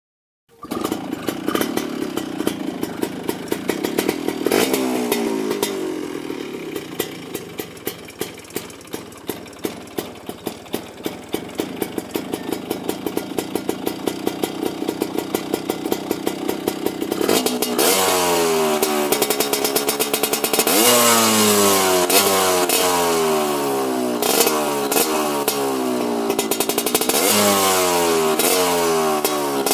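Yamaha RS100's single-cylinder two-stroke engine running through a stainless tune pipe (expansion chamber). It runs fast at first, drops to a loping, pulsing idle about four seconds in, then from about halfway is revved in repeated blips, its pitch rising and falling with each one.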